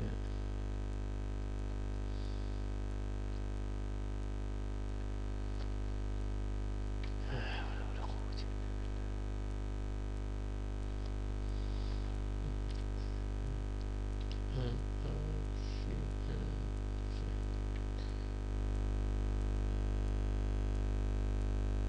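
Steady electrical buzz: a mains hum with many overtones that holds one unchanging pitch. A few faint brief sounds are heard over it, and it gets slightly louder near the end.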